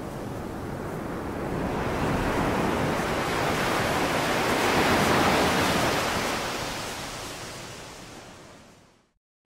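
AI-generated wind sound effect: a steady rushing noise that swells to its loudest about five seconds in, then fades away to silence near the end.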